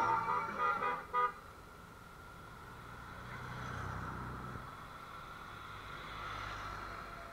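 A horn tooting in several short blasts in the first second or so, then Honda Gold Wing motorcycles riding past one after another, their engines rising and fading as each goes by, around four seconds in and again near the end.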